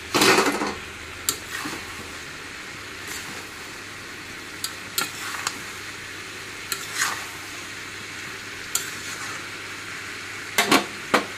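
Spatula scraping and knocking against a kadai as a vegetable curry is stirred, in irregular strokes over a steady frying sizzle; the loudest scrape comes right at the start.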